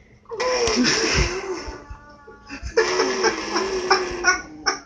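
A baby giggling and squealing in two long, high, wavering stretches, breaking into short laughs near the end.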